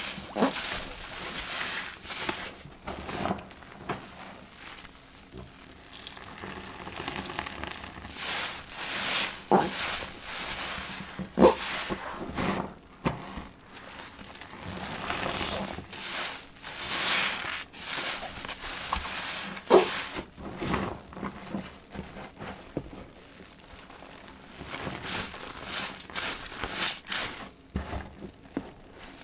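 New sponges soaked in soapy water being squeezed and kneaded by hand: repeated wet squelching and crackling of foam, in irregular swells, with a few sharper wet pops, the loudest about eleven and twenty seconds in.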